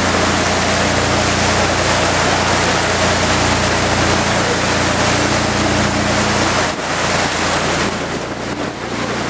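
Fishing boat underway: a steady engine hum under a loud rush of wind and water, which drops noticeably about two-thirds of the way through.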